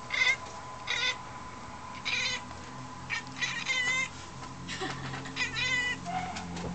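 Domestic cat at a window making a series of short, high, wavering chirps and meows at birds outside, about eight calls spaced irregularly.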